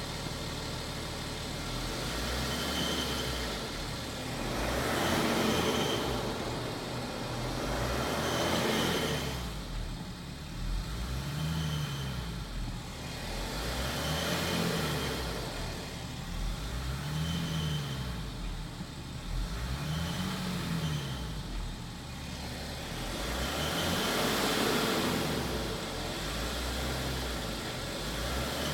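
BMW X5 (F15) engine revved over and over, rising and falling every few seconds. A high turbocharger whistle comes in at each rev.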